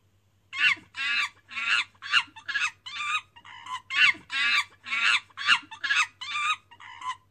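Monkey calls: a quick run of about fourteen short, high-pitched screeching chatters, roughly two a second, each bending in pitch.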